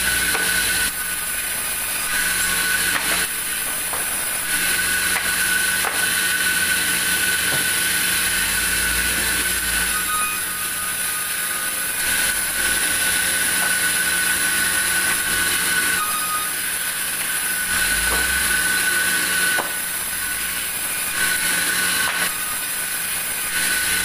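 Large vertical band saw running and ripping wooden boards: a steady high whine and hiss from the blade over a low rumble that swells and eases as each board is fed through, with occasional light knocks of boards being handled.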